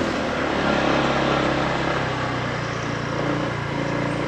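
Vehicle engine running on the move, with road noise. Its pitch steps up about two seconds in.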